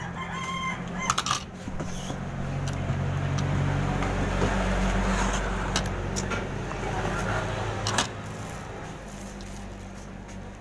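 A motor vehicle engine running steadily, growing louder about halfway through and fading toward the end, with a few sharp clicks.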